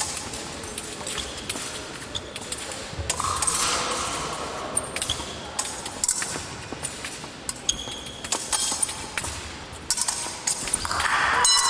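Épée fencing bout: repeated sharp clicks, taps and knocks of blades and footwork on the piste, with a steady sound lasting about two seconds around three seconds in and a louder one near the end.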